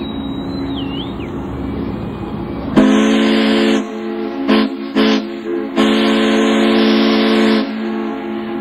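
Ships' steam whistles sounding together in a harbour whistle salute. About three seconds in, a loud, near steam whistle joins with a blast of about a second, two short toots and a long blast of about two seconds, over the steady tones of other whistles and horns.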